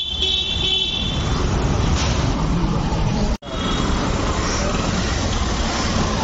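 Busy road traffic: a steady rumble of passing vehicles, with a car horn honking at the start. A faint horn sounds again just after a brief moment where the sound cuts out about halfway through.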